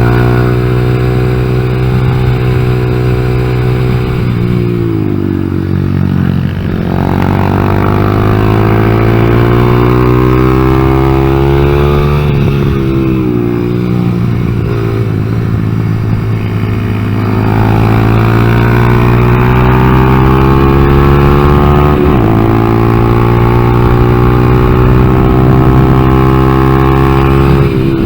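2014 Honda Grom's 125cc single-cylinder four-stroke engine running under load on track. The revs climb slowly, then fall off sharply about every five seconds as the throttle is closed. The rider says this engine bogs when the throttle is opened, because the ECU has not been reset after an engine swap.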